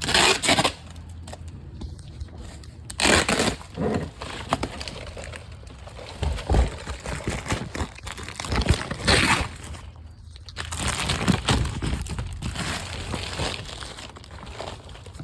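Packaging rustling and crinkling in irregular bursts as a boxed front bumper is pulled out and handled.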